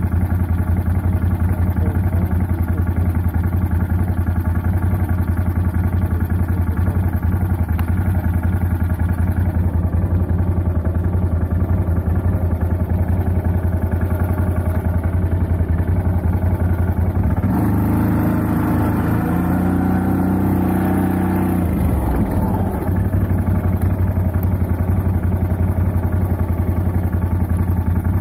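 CFMoto 850 quad's V-twin engine idling steadily. About two-thirds of the way through, its note rises and changes for a few seconds, then settles back to idle.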